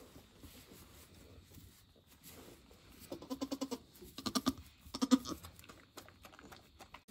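Nigerian Dwarf goats bleating: three short, quavering bleats about a second apart, beginning about three seconds in.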